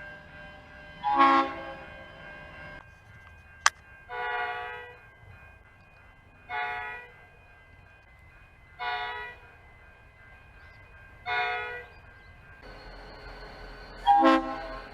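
Train horn sounding six short blasts, each a chord of several notes, most of them about two and a half seconds apart; the first and last are the loudest. A single sharp click comes a little before the second blast.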